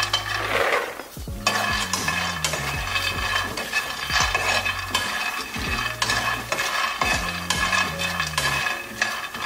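Raw peanuts pouring into a frying pan and then being stirred with a steel spoon, rattling and scraping against the pan, over background music with a stepping bass line.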